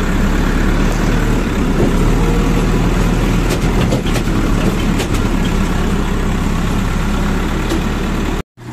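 JCB 3DX backhoe loader's diesel engine running steadily at idle. The sound cuts off suddenly near the end.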